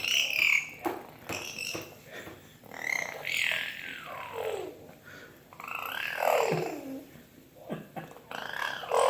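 A young child making fart noises with her mouth: a string of short blurts, then two long squealing noises that slide down in pitch, about three and six seconds in.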